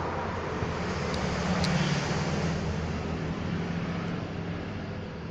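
A motor vehicle engine running steadily nearby: a low hum under a steady hiss.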